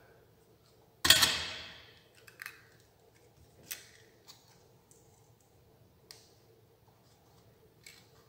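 A sharp clatter about a second in as the soldering iron is set down, fading over about a second. A few light clicks and ticks follow as hands work thin copper wires on a wiring board.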